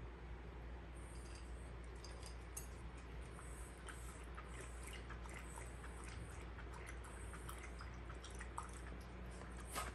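Dog eating dry kibble from a bowl: quiet crunching with many small, irregular clicks of food against the bowl.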